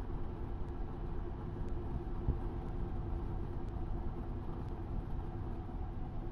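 Cessna 152's four-cylinder Lycoming O-235 engine and propeller running steadily, a constant low drone with a steady hum.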